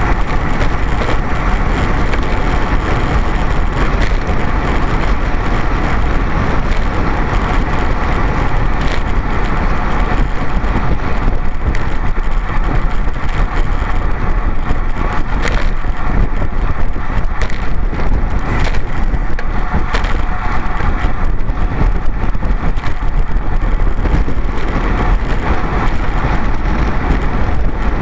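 Steady rush of wind buffeting the microphone of a camera on a road bicycle riding at speed, with tyre and road noise under it.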